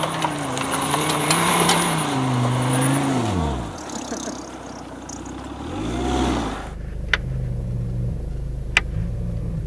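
Jeep Grand Cherokee engine revving up and down as it climbs a snowy hill, its pitch rising and falling and dropping away about four seconds in, then rising again briefly. After a sudden change about seven seconds in, a steady engine hum is heard from inside a vehicle's cabin, with a few sharp clicks.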